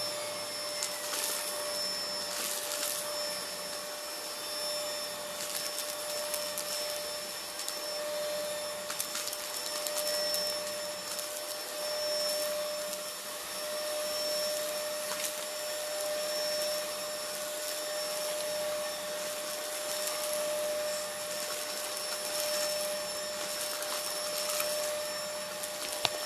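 Bagged household vacuum cleaner running with a steady whine as it sucks up dried dirt, ground chips and paper shreds, with scattered brief crackles of debris going up the nozzle.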